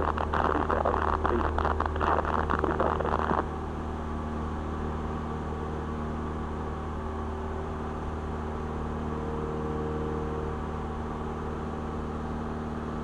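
Cessna 172R's four-cylinder Lycoming engine and propeller running steadily at climb power, heard from inside the cabin as a steady drone. For about the first three seconds a crackling hiss sits over the engine, then cuts off suddenly.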